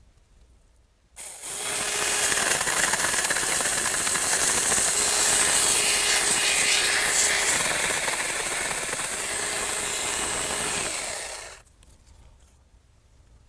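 Saker 4-inch 20-volt cordless mini electric chainsaw running and cutting through a tree limb. It starts abruptly about a second in, runs steadily for about ten seconds and stops near the end.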